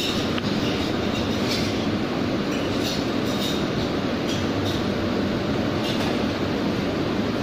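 Steady running rumble of a commercial kitchen's extraction hood and ventilation, with a few faint light clicks and clinks scattered through it.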